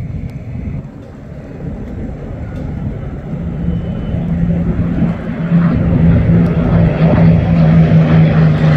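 Piston-engined warbirds growing steadily louder as they approach. A steady propeller-engine drone strengthens through the second half and dips slightly in pitch near the end as the aircraft pass.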